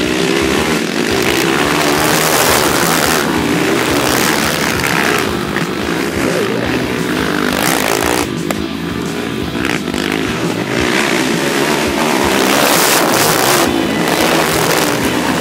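Off-road racing engines of dirt bikes and quads revving hard along a dirt track. The pitch rises and falls with throttle and gear changes, and it swells several times as machines pass close by.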